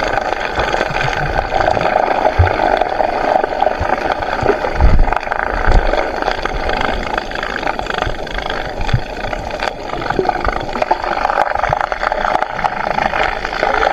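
Muffled underwater noise picked up by a submerged camera in a fishing net full of fish: a steady rushing hum with a few dull low knocks.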